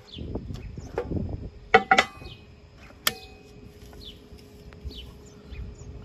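Welded aluminum cans handled and knocked against a steel angle iron: two sharp ringing clinks close together about two seconds in and another about a second later, over low handling rumble. Short falling bird chirps repeat in the background.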